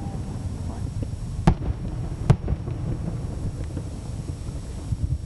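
Aerial fireworks shells bursting at a distance: two sharp bangs less than a second apart, about a second and a half in, over a steady low rumble.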